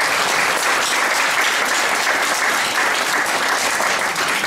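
Audience applauding steadily, an even, dense clapping that fills the room.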